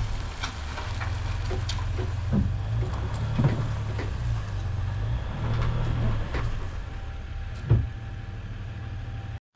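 A truck engine running with a steady low rumble, with scattered knocks and clatters over it. It cuts off abruptly near the end.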